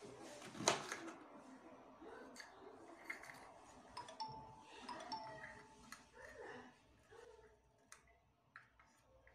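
Kitchen knife slicing a green bell pepper into rings on a plastic cutting board: irregular light clicks and taps as the blade cuts through and meets the board, with one louder knock about a second in.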